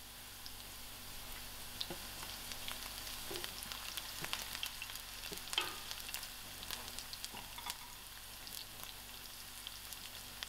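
Sliced garlic and softened onions frying in hot oil over medium heat: a steady, low sizzle with scattered crackles and pops.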